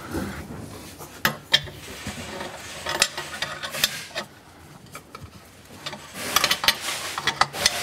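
Ratchet wrench clicking in short bursts, with scattered metal clinks and knocks, as fittings on a car's exhaust headers are tightened. A quick run of clicks comes near the end.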